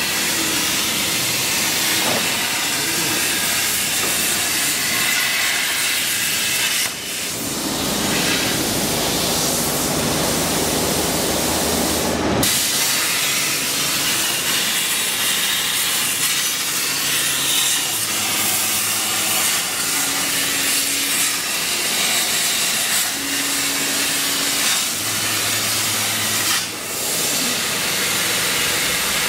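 CNC plasma cutting table's torch cutting metal plate: a loud, steady hiss of the plasma arc and its air jet, dipping briefly twice.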